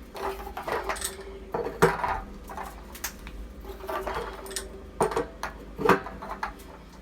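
Hard objects clattering and knocking as they are handled, with several sharp knocks among lighter rattling, the loudest a little under two seconds in and about six seconds in.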